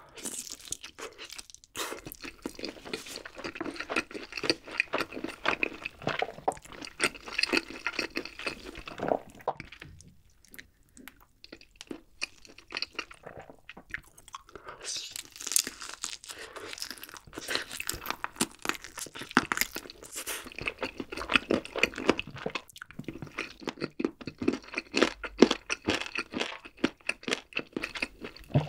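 Close-miked biting and chewing of a sauce-glazed barbecue chicken drumstick, with wet, irregular mouth and bite sounds. There is a quieter pause about ten to fourteen seconds in.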